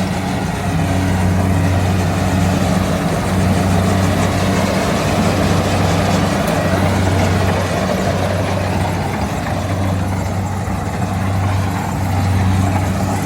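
Rice combine harvester running: a steady low engine hum under a broad wash of machine noise.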